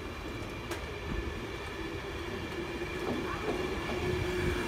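LNER InterCity 225 electric train, led by its Mark 4 driving van trailer 82208, approaching along the line past the platform: wheels running on the rails with a steady hum, growing louder toward the end.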